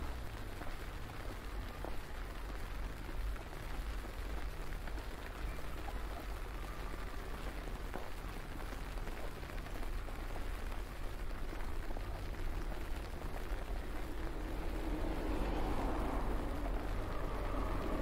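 Steady street noise in heavy snowfall under a low, uneven rumble. From about 15 s in, a vehicle approaches along the snow-covered road, and its tyre and engine noise grows louder toward the end.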